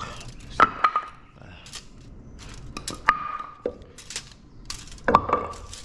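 Tape measure and a short wooden block being handled while the block is measured: scattered sharp clicks and knocks, three of them with a brief ring.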